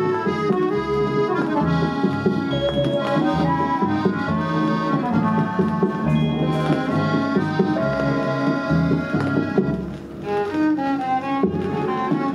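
Music playing from a 7-inch vinyl single on a 1963 Fidelity UA7 record changer, with a brief dip in level about ten seconds in.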